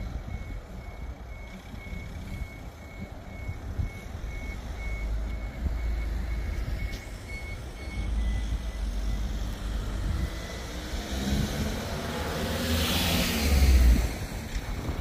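A vehicle's reversing alarm beeping steadily, about two beeps a second, stopping about eight seconds in. Near the end a vehicle passes close by, getting louder and then falling away in pitch.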